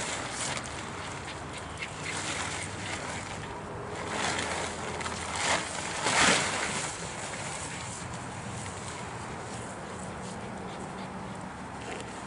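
Coleman Sundome tent fabric rustling and flapping as it is unrolled and shaken out by hand, with a few louder swishes, the loudest about six seconds in.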